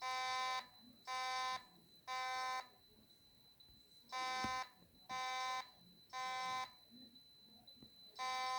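Fire alarm horn sounding the temporal-3 evacuation pattern: three buzzy half-second blasts, a pause of about a second and a half, then three more, with the next group starting near the end. A faint steady high-pitched whine runs underneath.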